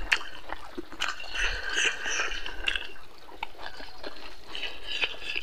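Close-up eating sounds: wet chewing and lip smacks, with fingers pressing and scooping rice on the plate, heard as irregular soft clicks and squelches.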